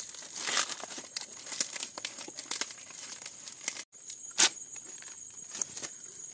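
Fresh green leaves rustling and crinkling as they are folded and bound tightly around a leaf-wrapped food packet, in irregular handling noises with a louder crackle a little over four seconds in.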